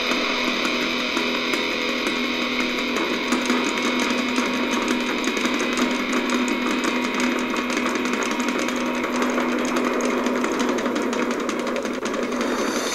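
Background music driven by fast, rapidly repeated guitar notes, steady throughout.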